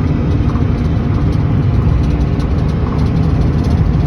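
Steady engine and road rumble heard from inside a moving car.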